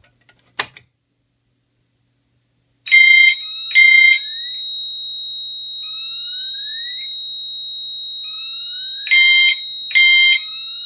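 A pull station is pulled and snaps once with a sharp click. About three seconds later a Pyrotronics MTL multitone horn set to single-stroke chime sounds two quick chime strokes, and repeats the pair about six seconds later: the coded signal for zone 2 in alarm. A steady high-pitched tone and faint rising chirps run under the chimes.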